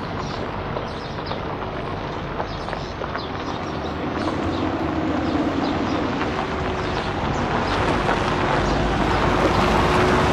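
A vehicle on the move: steady road and engine noise with scattered light clicks and knocks, growing gradually louder.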